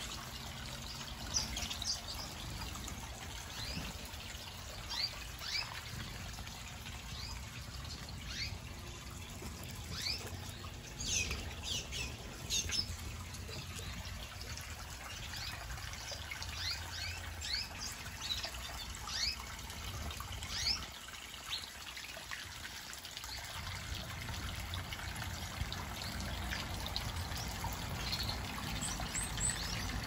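Small aviary birds, canaries and finches, chirping in many short, quick calls over the steady trickle of water running down a small rock waterfall into a pond.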